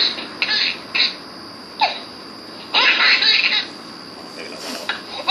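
A baby laughing in short bursts, the longest and loudest run of laughter coming about three seconds in.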